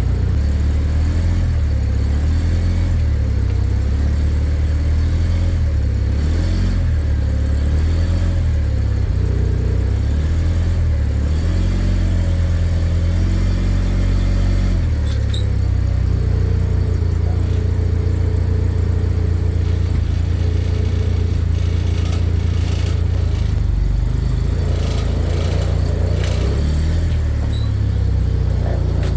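Large truck engine running, its revs rising and falling in steps as it is driven.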